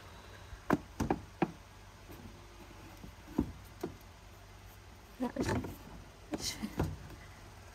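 Scattered light knocks and clicks, about eight in all, with a quick cluster a little past halfway: a kitchen storage cupboard and the things on its shelves being handled.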